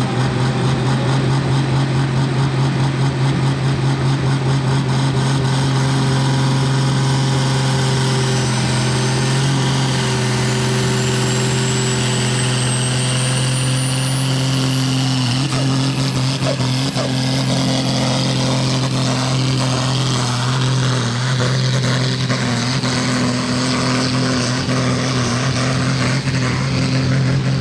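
Turbocharged diesel engine of a tuned pulling tractor (about 1000 hp) running loud at a steady high speed, with a thin high whine that rises slowly over several seconds partway through.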